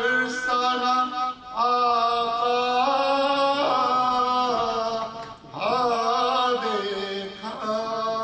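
A man chanting a marsiya, an Urdu elegy, solo and unaccompanied in a melodic recitation style. He holds long notes that step up and down in pitch, in three phrases with short breaths about a second in and a little past halfway.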